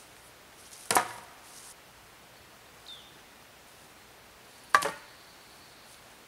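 Two sharp wooden knocks, one about a second in and one near five seconds, each with a short ring after it.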